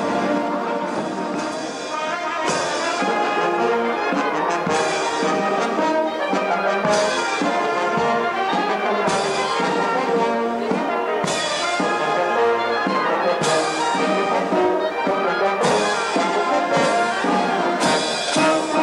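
Marching brass band playing a march, trumpets and trombones carrying the tune, with a sharp crash on the beat about every two seconds.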